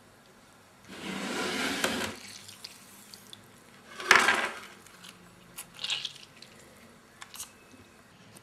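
Wet handling of artichokes in a ceramic bowl as half a lemon is rubbed over them to stop them blackening: a rustling, liquid sound lasting about a second, then a louder, shorter one about four seconds in, followed by a few small drips and taps.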